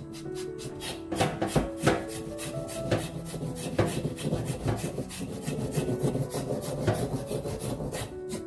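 Back of a kitchen knife scraping the skin off fresh burdock roots, repeated rasping strokes starting about a second in, over light background music.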